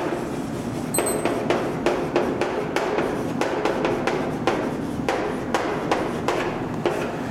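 Chalk tapping and scraping on a chalkboard as words are written, an irregular run of sharp taps, several a second.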